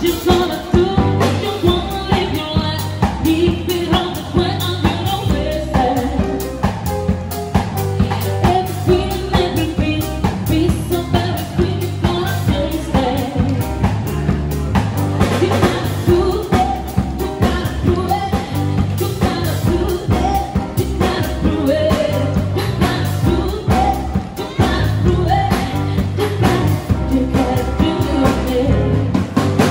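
Live band music: a woman singing into a microphone, backed by drum kit and piano, with a steady beat.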